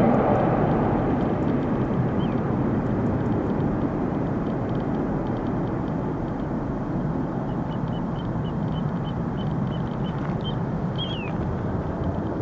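Jet engine noise from a landing Boeing 737-800 with CFM56-7B turbofans: a steady rumble that slowly grows quieter.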